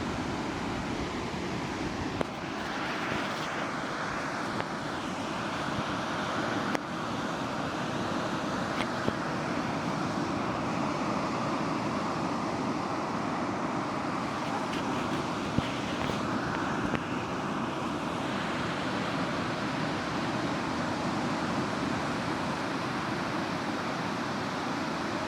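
Steady roar of Pacific surf breaking along a sandy beach, swelling twice as waves crash and wash in, with a few faint sharp clicks.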